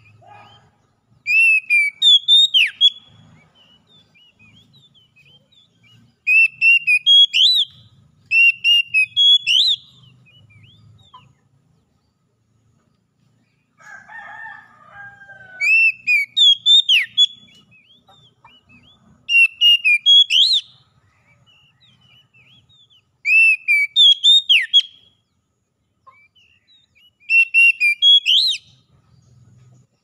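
Oriental magpie-robin singing: about seven loud, clear whistled phrases, each about a second and a half long, come every few seconds. A short, lower call is heard in the background about halfway through.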